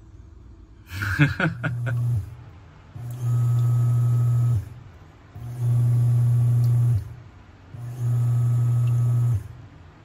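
Top-loading washing machine in its wash cycle: the motor drives the pulsator in bursts of about a second and a half with short pauses between them, a low hum each time as the water is churned, the sign that wash-mode agitation now works. A brief clatter comes about a second in.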